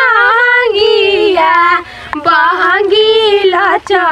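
A high female voice singing a devotional Chhath song in long, sliding held notes, with a few sharp percussion clicks.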